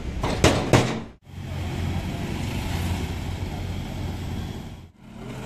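A few sharp metal clanks near the start, then a loader auto-rickshaw's small engine running steadily as the three-wheeler drives.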